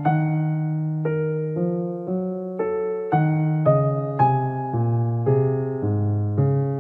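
Background music: a piano or electric piano playing a gentle melody with chords, a new note about every half second.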